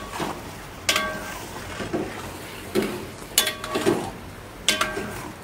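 Steel ladle stirring chicken curry masala in a large steel pot, clanking against the pot about six times, each strike ringing briefly, over a low sizzle of the frying masala.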